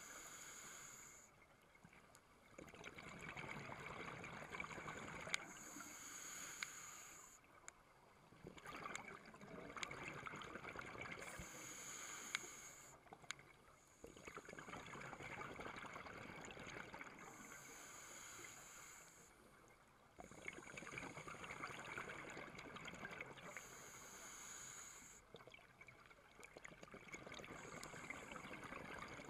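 Scuba regulator breathing heard underwater: a short hissing inhale followed by a longer burbling rush of exhaled bubbles, repeating several times.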